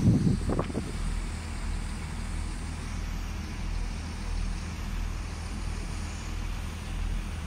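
Low steady rumble of a distant diesel train, two coupled Class 221 Voyager units approaching, heard over outdoor station ambience, with a short loud burst of low noise in the first second.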